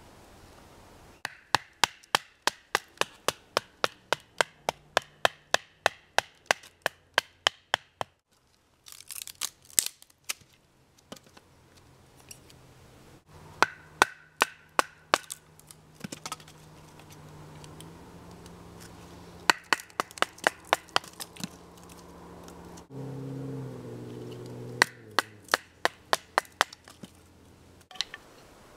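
Runs of sharp wooden knocks, about three a second, as a small stick of wood is struck and split into fine kindling. A short crackling burst comes near ten seconds in.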